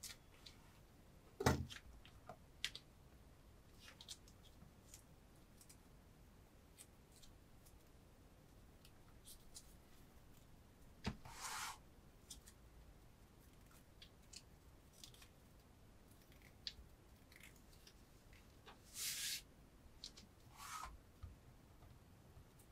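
HEZHEN Damascus chef knife blade slicing through strips of paper under about 1 kg of pressure, in a sharpness test: two short hissing cuts, one about halfway and one near the end. Between them are faint clicks and taps of handling, and a sharp knock about a second and a half in is the loudest sound.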